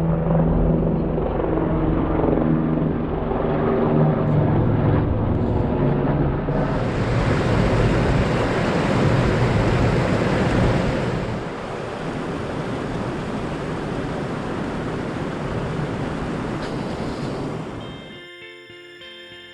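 Wind buffeting the camera microphone outdoors, a loud low rumbling rush. Near the end it fades under guitar music.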